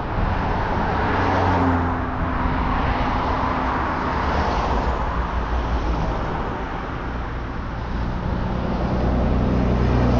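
A motor vehicle's engine humming low over a steady rushing road noise.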